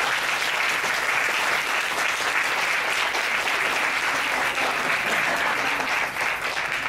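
Audience applauding, a dense, steady round of clapping that thins out near the end.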